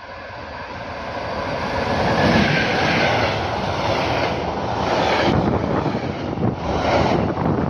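Electric-hauled container freight train passing close by: the locomotive's sound grows quickly louder over the first couple of seconds, then the loaded container wagons rumble past with their wheels clunking over the rail joints.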